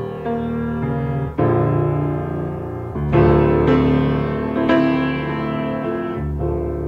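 Solo piano playing a slow introduction of sustained chords, changing chord about every second and a half.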